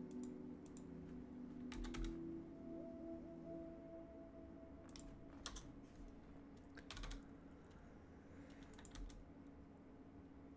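Computer keyboard keys tapped in a few short clusters of quiet clicks, a couple of seconds apart.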